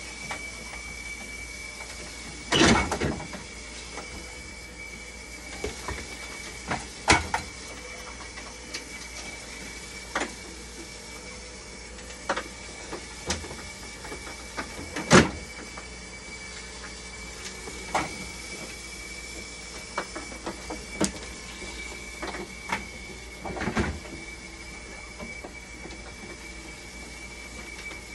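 Scattered clicks, knocks and rattles of hands handling parts inside an opened dialysis machine, the loudest about 3, 7, 15 and 24 seconds in, over a steady high-pitched tone.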